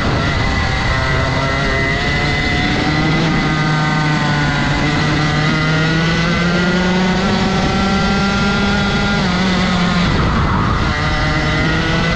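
Rotax 125 single-cylinder two-stroke kart engine running hard at high revs. Its pitch climbs steadily over several seconds, dips briefly about ten seconds in, then picks up again.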